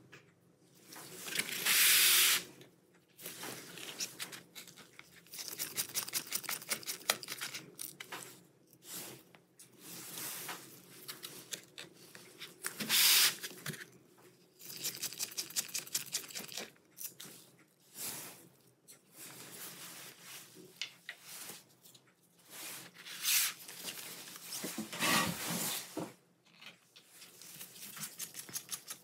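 Small Torx T6 screwdriver working the tiny screws out of a laptop's bottom panel: light clicking and scraping of the driver in the screw heads, with rustling and scuffing as gloved hands shift the laptop about on a foam pad. The loudest rustles come about two seconds in and about thirteen seconds in.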